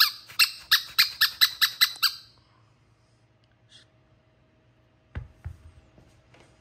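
A squeaky rubber dog ball squeezed rapidly in the hand, about nine high squeaks in two seconds. A couple of dull thumps follow about five seconds in.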